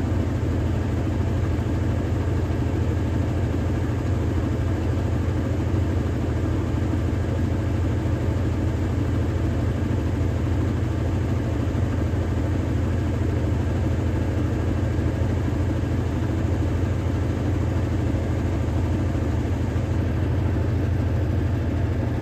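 Electrolux Ecologic LEC12 12 kg washing machine in its intermediate spin, the motor and drum giving a steady low hum at an even speed. It is a long spin that has run for about twenty minutes.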